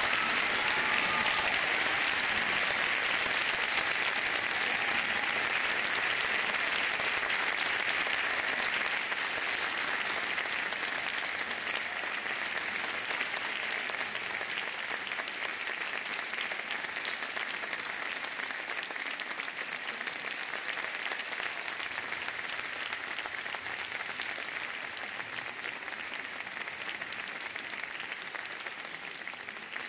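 Audience and orchestra applauding in a concert hall: a long, dense round of clapping that slowly dies down.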